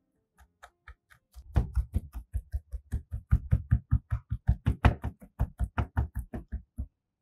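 Chef's knife chopping raw beef tenderloin into a fine mince on a cutting board: a few scattered taps, then quick, even knocks at about six a second that stop shortly before the end.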